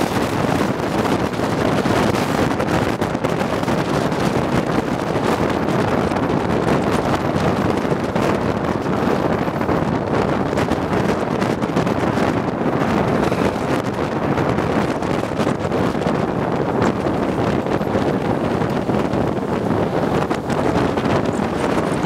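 Strong wind buffeting the microphone of a bike-mounted GoPro action camera: a steady, unbroken rushing noise.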